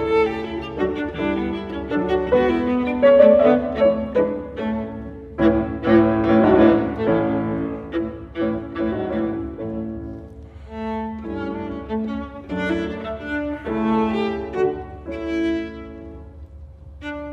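Viola and grand piano playing classical chamber music together: bowed viola lines over piano chords, swelling to the fullest, loudest chords about five to seven seconds in.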